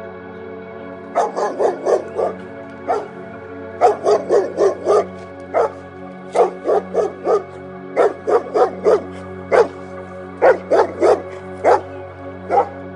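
Dog barking in quick runs of short, sharp barks, a handful at a time with brief pauses between the runs, over steady background music.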